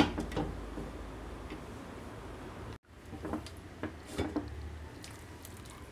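Glass lid handled on a metal cooking pot: a light clink as it is set on near the start, then a few soft clinks a few seconds later as it is lifted off with a cloth.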